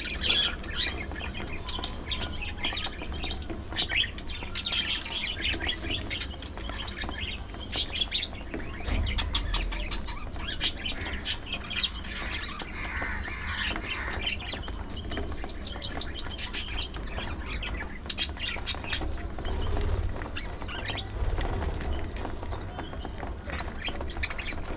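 A small flock of budgerigars chattering, with a steady run of short, quick chirps.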